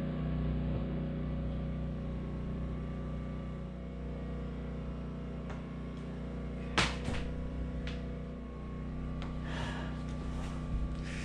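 A steady low hum with a few sharp clicks and soft rustles as a rubber roof flashing boot is trimmed and worked down over a metal chimney pipe; the loudest click comes about seven seconds in.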